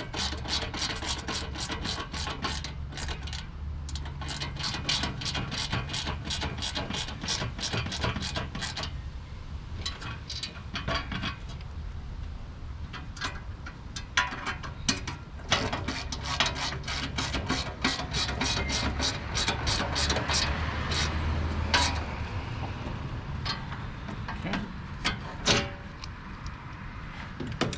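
Hand ratchet wrench clicking as the fasteners on a cold air intake are tightened: a fast, even run of clicks for about the first nine seconds, then shorter, scattered runs of clicks.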